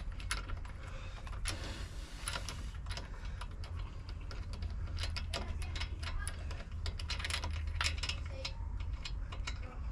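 Hand socket ratchet clicking in short, irregular runs as bolts are undone, over a steady low hum.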